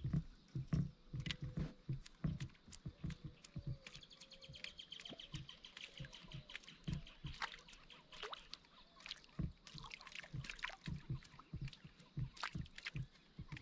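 Small irregular knocks and water lapping against a plastic fishing kayak's hull on calm water, with birds calling in the background and a high trill for a few seconds midway.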